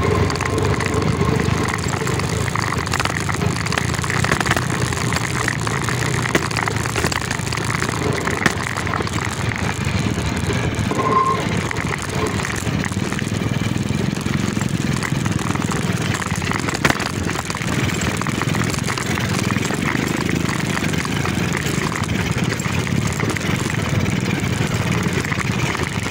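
Motorcycle engine running steadily while riding over a rough dirt and rocky trail, with a few sharp knocks.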